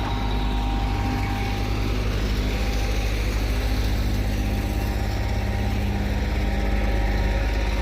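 Diesel engine of heavy asphalt-paving machinery running steadily at a constant speed.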